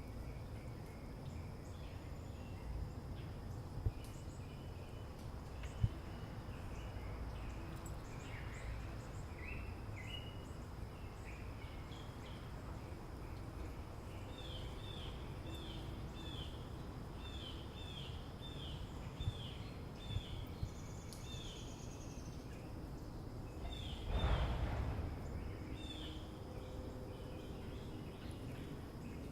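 Early-morning suburban ambience: birds chirping over a steady low rumble and a thin, steady high tone. In the middle a bird repeats a short chirp about twice a second. A brief whoosh swells and fades about three-quarters of the way through.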